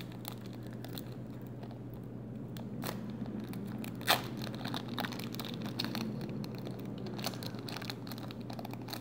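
Foil trading-card booster pack being torn open and crinkled by hand: a run of small crackles, with one louder tear about four seconds in.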